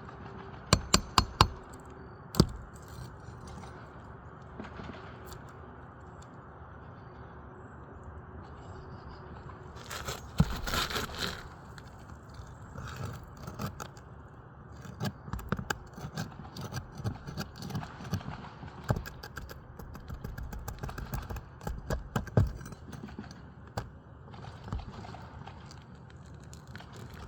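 Metal hand tools clicking and scraping against asphalt roof shingles and nails as a shingle is worked loose for repair. A quick run of four sharp clicks comes near the start, a longer scrape about ten seconds in, then many scattered clicks and taps.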